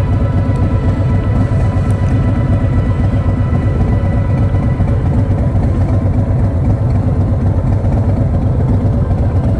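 Harley-Davidson V-twin motorcycle engine running steadily at cruising speed, with road and wind noise.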